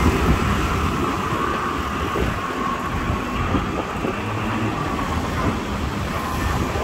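Road traffic at a railway level crossing: motor scooters, motorcycles and cars driving across the tracks after the barrier lifts, their engines running together as a steady din.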